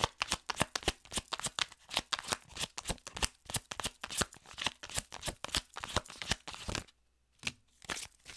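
A tarot deck being shuffled overhand by hand: a rapid, continuous run of cards flicking against each other that stops about seven seconds in, followed by a few scattered taps.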